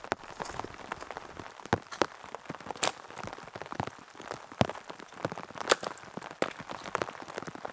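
Rain falling on a tarp shelter: a steady patter of irregular drops, with a few single drops striking louder and sharper.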